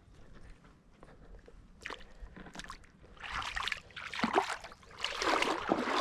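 Water sloshing and splashing in irregular surges, starting about three seconds in and getting louder toward the end.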